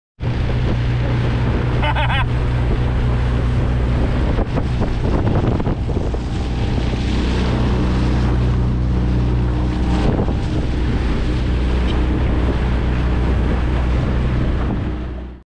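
Motorboat engine running steadily under way, with wind buffeting the microphone.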